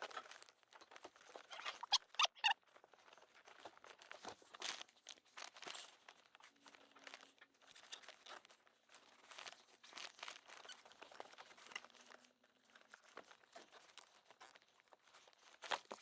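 Nylon zip ties being pulled tight around a wiring bundle by gloved hands: faint, scattered plastic clicks and rustles, loudest about two seconds in.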